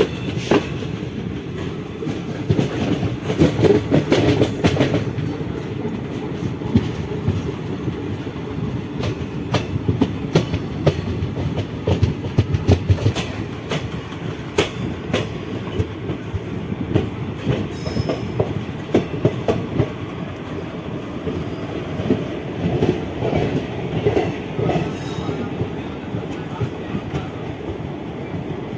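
Passenger train coach wheels running on the rails, clattering over joints with a steady low rumble, heard from the coach's open doorway.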